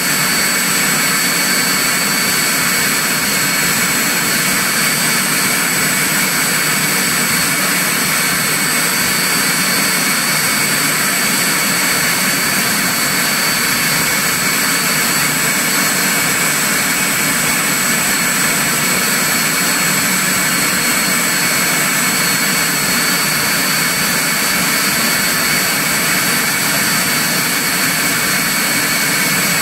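Turbomeca Turmo C6 gas turbine engine running steadily on a test stand: a loud, even rush with a constant high-pitched turbine whine.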